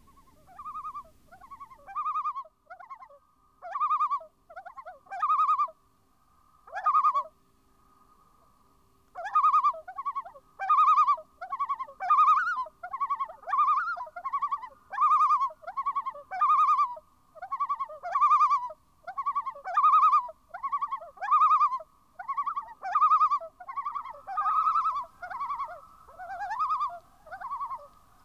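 Common loons calling: a long series of quavering, tremolo-like notes, sparse at first and then coming steadily about every 0.7 s from about a third of the way in. A long held wail runs beneath them from about a fifth of the way in.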